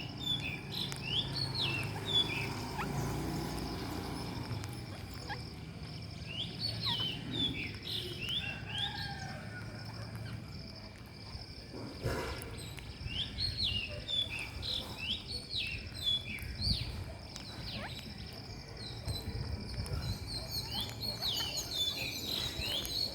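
Rose-ringed parakeets calling in bursts of shrill, quickly falling chirps, a cluster every several seconds, over a faint steady high background tone.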